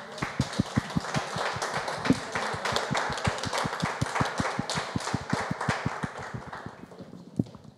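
Applause: many people clapping, fading away about seven seconds in, with one last single clap near the end.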